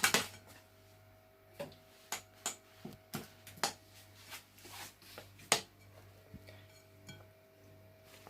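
Spoon stirring pancake batter in a bowl, with irregular clicks and knocks as it hits the side of the bowl; the sharpest knock comes about five and a half seconds in.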